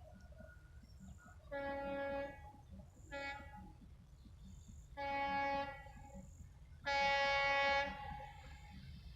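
EMD diesel locomotive's horn sounding four blasts, one short and three longer, the last the loudest, over a steady low rumble.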